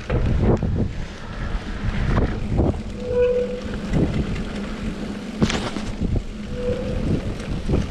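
Wind buffeting the microphone over the rumble of a mountain bike rolling down a wet dirt trail, with knocks from the bike jolting over bumps and two short squeaks.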